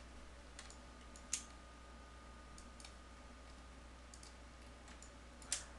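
A few faint, scattered computer mouse clicks, the loudest about 1.3 s in, over a low steady hum.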